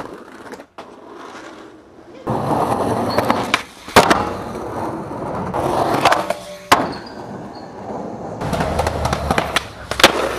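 Skateboard wheels rolling over pavement, with three sharp clacks of the board popping and landing a few seconds apart after a quieter start.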